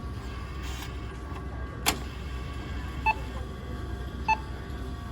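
Bus ticket vending machine: a sharp click, then two short electronic beeps a little over a second apart, over a steady low hum.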